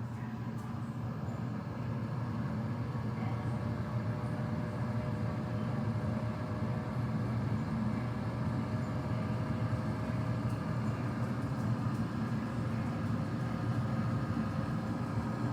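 Smart air fryer's convection fan running: a steady whirring hum with a low rumble and a few faint steady tones, unchanging throughout.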